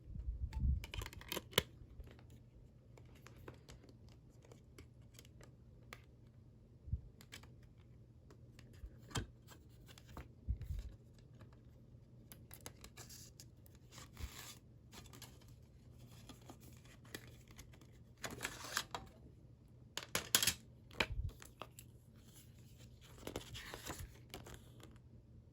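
Unwrapping and handling a CD: plastic wrap tearing and crinkling in short rustling bursts, with scattered clicks and knocks of the case being handled.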